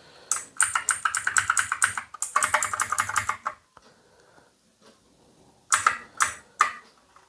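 Keys of an Ant Esports MK3400 Pro V3 mechanical keyboard being pressed in a fast run of clicks for about three seconds. After a short pause come three louder, separate clacks near the end.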